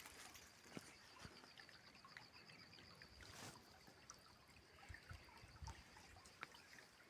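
Near silence: faint outdoor ambience with a faint, fast-pulsing high trill and a few soft clicks.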